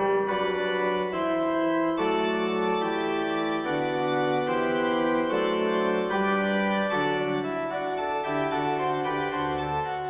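Background music of slow, held keyboard chords, each chord changing every second or two.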